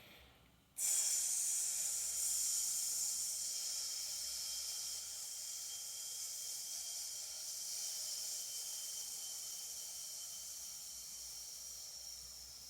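A man's long, slow exhaled "sss" hiss, the lung (metal) sound of the Chinese-medicine healing sounds. It starts suddenly about a second in and slowly fades over some twelve seconds as the breath runs out.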